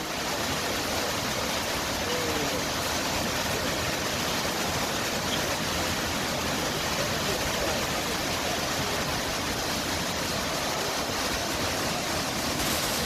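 Steady rush of the Ouzoud waterfalls: water falling and churning in an even, unbroken roar.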